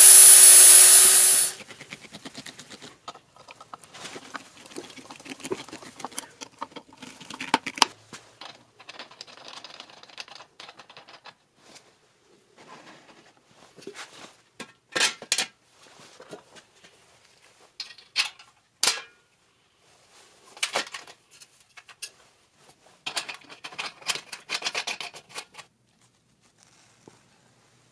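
Angle grinder grinding metal with a steady high whine, cutting off about a second and a half in. Then scattered scrapes, clicks and a few sharp metallic knocks from handling and screwing together black iron pipe fittings.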